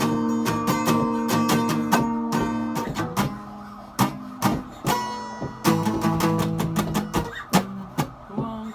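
Acoustic guitar strumming chords, the strokes coming in quick succession, with one chord left to ring and die away about three seconds in before the strumming starts again.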